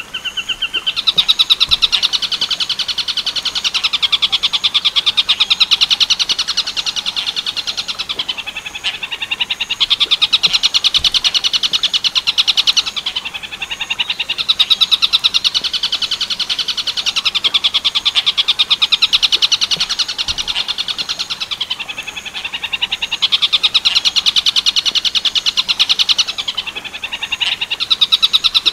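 Tengkek buto kingfisher calling in long, fast rattling trills of rapidly repeated notes. The trills come in bouts of several seconds, five times, with short breaks between them.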